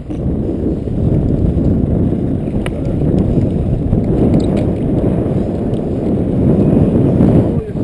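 Steady low rumble of wind buffeting a head-mounted GoPro's microphone on a boat at sea, briefly dropping away near the end.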